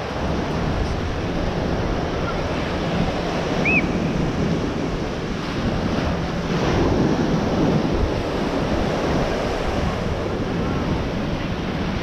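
Small surf breaking and washing up on a sandy beach, a steady rush of water, with wind buffeting the microphone.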